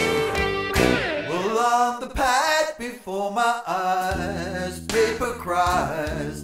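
A man singing in a wavering, bending voice over Stratocaster electric guitar. The guitar strums chords at first, and a low held bass note comes in about four seconds in.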